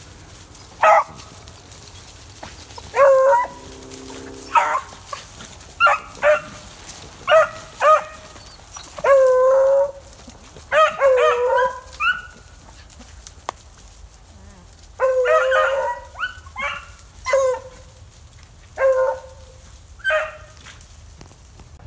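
Pack of beagles baying on a rabbit's trail: a string of short barks and longer drawn-out bawls from several hounds, sometimes overlapping.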